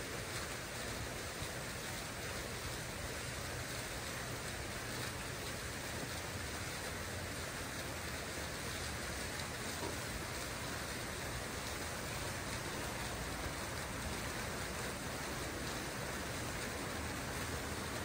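Water fountain running: a steady, even splash of falling water.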